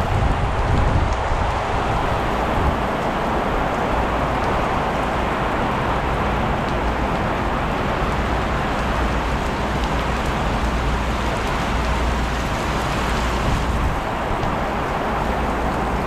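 Heavy rain pouring steadily in strong wind, an even hiss with a low rumble beneath it.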